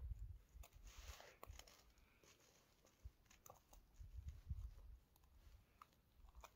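Faint scattered clicks and rustling of a hook being worked out of a pike's mouth with a metal extractor, with soft low thumps of handling near the start and about four seconds in.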